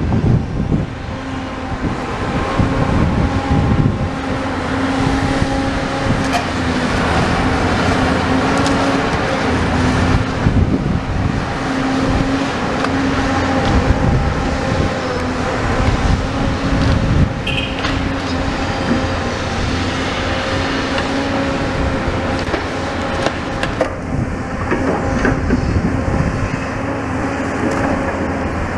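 Demolition excavator's diesel engine running steadily, a constant hum with a few sharp knocks through it.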